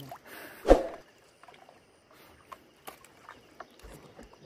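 Small splashes and knocks around a wooden canoe as a fishing net is handled over the side, with one louder thump a little under a second in and scattered light knocks after it.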